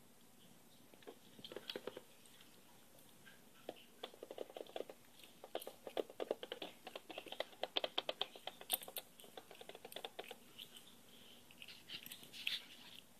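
Light tapping on a hard surface, a few scattered taps at first, then quick runs of many taps a second through the middle and a short flurry near the end.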